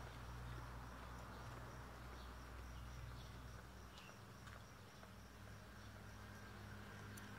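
Faint outdoor ambience: insects chirping steadily over a low hum.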